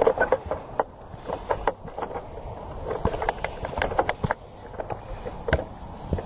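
Footsteps of a hiker walking on a trail, with irregular clicks and rustling of gear.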